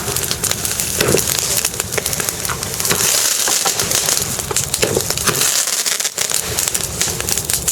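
Bonfire burning, with a dense, continuous crackle and many sharp pops.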